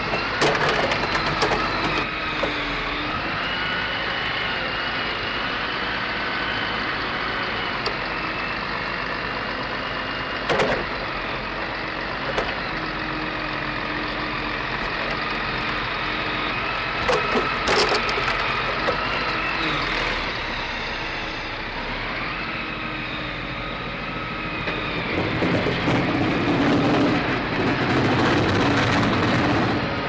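Crane-fed mobile wood chipper's engine and hydraulics running steadily, with a whine that rises and falls in pitch as the loading crane moves. A few sharp knocks come through, and the machine grows louder in the last five seconds.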